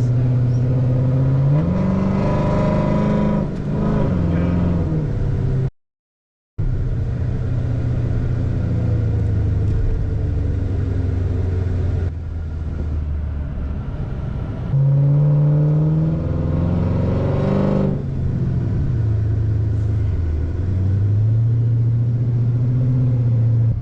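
Chrysler 300C's 5.7-litre HEMI V8 driving in traffic, heard from inside the cabin. The engine note rises under acceleration and drops back several times as the car shifts and eases off. The sound cuts out completely for under a second about six seconds in.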